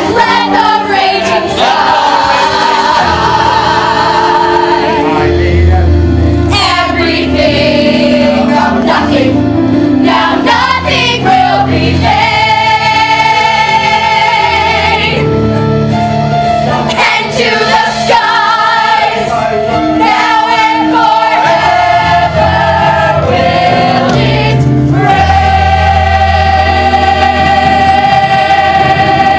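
A choir of young voices sings long held, wavering notes over instrumental accompaniment with a deep bass line.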